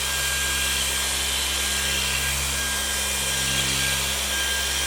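Power sander fitted with a mesh sanding disc running steadily while sanding: an even motor hum with a thin steady tone over the hiss of the abrasive on the surface.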